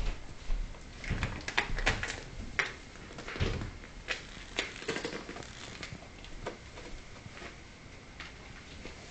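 Ferrets tugging and dragging shoes across a wooden floor: irregular knocks, scuffs and scrapes, busiest and loudest in the first few seconds, then sparser.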